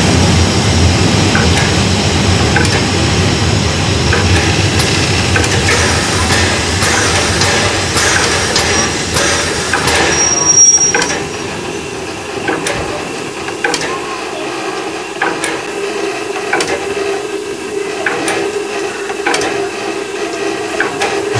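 Narrow-gauge Brocken railway train running downhill. A steady rumble of wheels on the track fills the first half, a brief high squeal comes about halfway through, and then a quieter stretch of scattered clicks over a steady whine.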